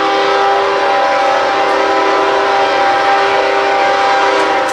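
Approaching locomotive's air horn sounding one long blast, a steady chord of several notes that cuts off near the end.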